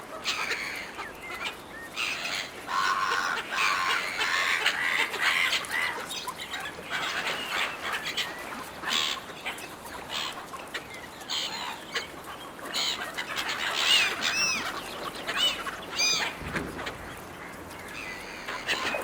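A flock of gulls calling and squabbling while competing for food, with many harsh overlapping calls. A few shrill squeals stand out in the second half.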